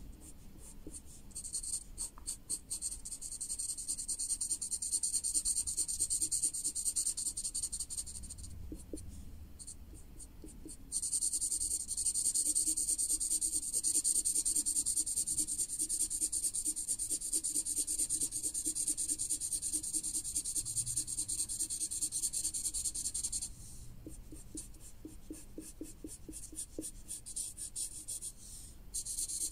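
Felt-tip marker rubbing back and forth across paper in a steady scratchy hiss as it colours in an area. Twice it breaks into a run of short, separate strokes for a few seconds: about a third of the way in and again near the end.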